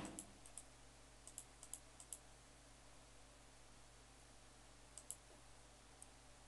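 Faint computer mouse clicks over a low steady hum: several in the first two seconds, a quick pair about five seconds in and one more at six.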